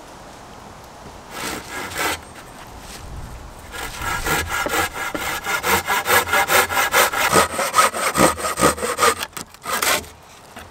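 Folding hand saw cutting through a thin bark-covered wooden pole. A few short strokes come first, then a run of fast, even back-and-forth strokes, about three or four a second, which stops near the end.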